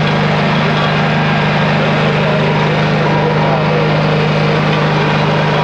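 Pacific Tek PV-100 trailer-mounted vacuum excavator running at a steady drone, with a rushing hiss of air and water drawn in through the duck-bill pick-up wand as it sucks water off wet pavement.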